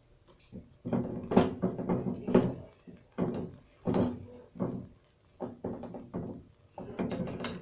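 Utensil stirring thick, cooking strawberry jam in a small nonstick pan, knocking and scraping against the pan about ten times at an uneven pace.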